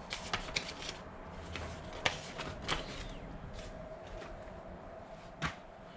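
Packaging and parts of an unboxed LED grow light kit being handled: scattered rustles and light clicks, with one sharper click about two seconds in and another near the end.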